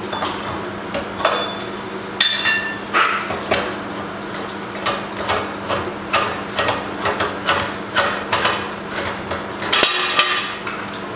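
Stainless steel brewery pipework being dismantled by hand: irregular metal clinks and knocks as pipe sections and RJT fittings are worked loose, some ringing briefly. A steady low hum sits underneath.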